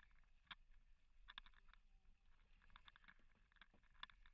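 Near silence: a faint low rumble with scattered small clicks and ticks.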